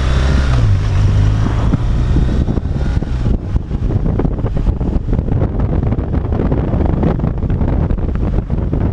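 Wind buffeting a helmet-mounted camera's microphone on a BMW R 1200 RT motorcycle under way. The bike's boxer-twin engine hum is heard for the first couple of seconds and is then buried under the gusty wind rush.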